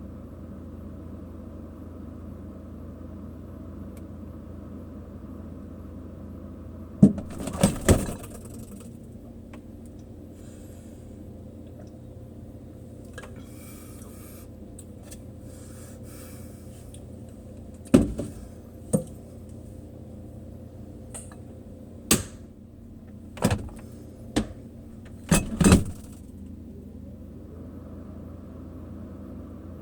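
Steady refrigerator hum, broken by sharp clinks and knocks as items inside the fridge are handled: a cluster about seven seconds in, then several more scattered through the second half.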